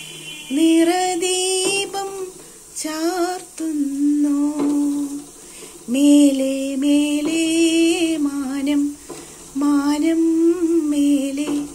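A woman singing without accompaniment, in long held notes with a slight waver, phrase after phrase with short pauses for breath.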